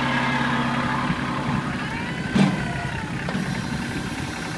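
Kubota compact tractor's diesel engine running steadily at idle; its strongest steady tone drops away about a second in. A single sharp knock about two and a half seconds in.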